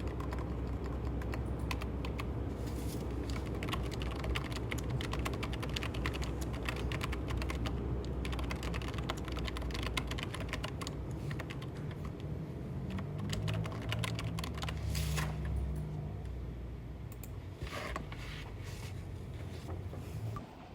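Typing on a computer keyboard: a fast, continuous run of key clicks that thins out to a few scattered strokes after about 16 seconds, over a low steady hum.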